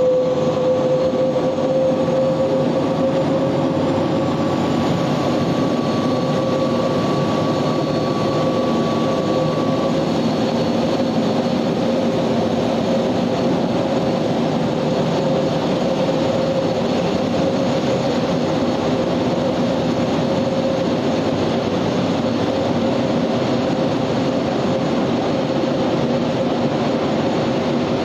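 SNCF gas-turbine trainset running under power with a steady turbine whine over a loud rushing roar as it pulls out. The whine rises slightly in pitch over the first few seconds, and a higher second tone fades out about ten seconds in.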